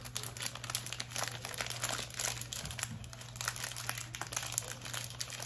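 A small printed wrapper crinkling and crackling as it is crumpled and picked open by hand, in quick irregular crackles, over a low steady hum.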